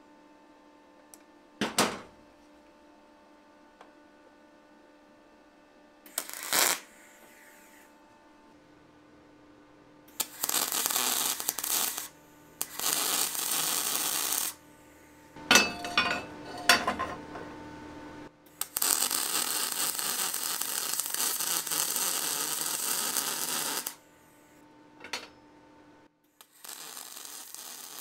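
Aluminum being arc-welded: the arc hisses and crackles in runs of about two, two and five seconds, with a few sharp clicks between them and a steady electrical hum underneath.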